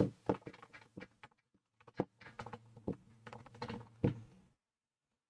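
Someone writing by hand: a run of short taps and scratches, with a few louder knocks about two and four seconds in, stopping about a second before the end.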